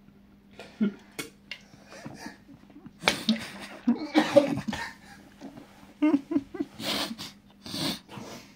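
A person coughing and gagging in irregular bursts after taking a sip of sour, salty pickle brine, over a faint steady hum.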